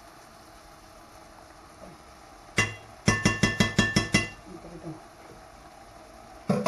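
A metal spoon tapped against the rim of a frying pan to knock off cream. There is one clink, then a quick run of about eight ringing clinks lasting about a second, and another knock near the end.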